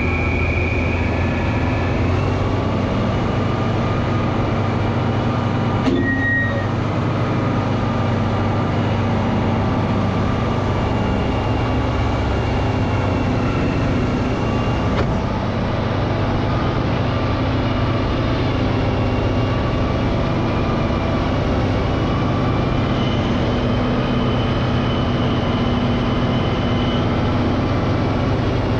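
Caterpillar 637C scraper's heavy diesel engine running steadily under load, a constant drone with engine tones that shift slightly in pitch, and one brief click about six seconds in.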